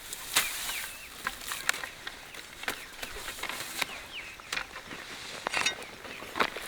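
Short bird chirps scattered among irregular sharp clicks and rustles.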